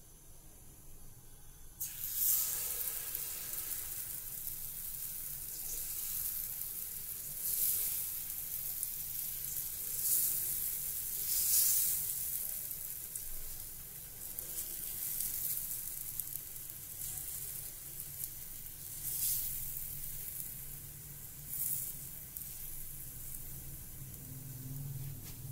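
Besan chilla batter sizzling on a hot oiled iron tawa: the sizzle starts suddenly about two seconds in as the batter goes onto the griddle, then keeps going with several swells.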